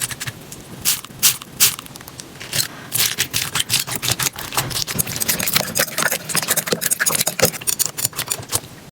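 Slime being squeezed and worked by hand, giving off irregular wet crackles and pops that come thicker from about three seconds in.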